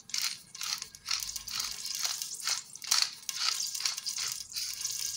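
Peppercorns being ground over the pot: short, even, crunching turns about two to three a second, with a steady hiss underneath from about a second in.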